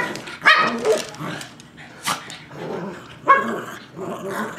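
Two Cavalier King Charles Spaniels barking in rough play: about five short, sharp barks, the loudest a little past three seconds in, with scuffling between them.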